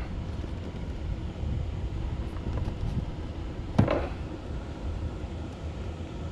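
Wind rumbling on the microphone, with one sharp knock a little under four seconds in.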